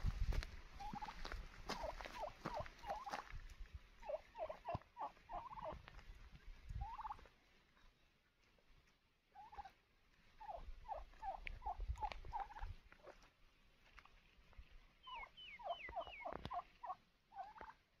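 Wild turkeys calling: short, falling notes in quick runs of three to six, coming every few seconds, with a brief run of higher, thinner notes near the end.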